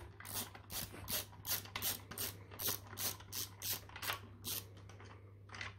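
Hand ratchet clicking at about four clicks a second as it backs stainless steel bolts out of the plastic Kinetico softener valve body. The clicking stops about four and a half seconds in, with one last click near the end.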